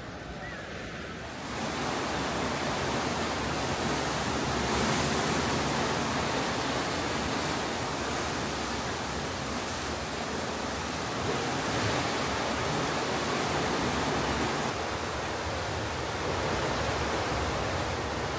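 Steady rushing noise of the sea, jumping up sharply about a second and a half in and then holding.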